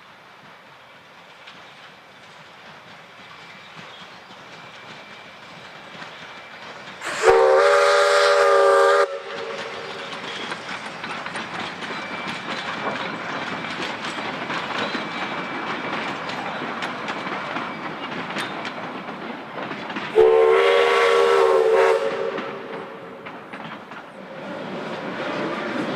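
Steam locomotive M4 running with its train, the rail noise building over the first several seconds. Its whistle sounds two loud blasts of about two seconds each, several tones together, some thirteen seconds apart, over the steady clatter of wheels on the rails.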